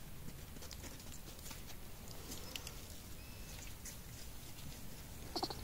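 Faint scattered ticks and rustles of small vervet monkeys clambering about their enclosure, with a brief pulsed call near the end.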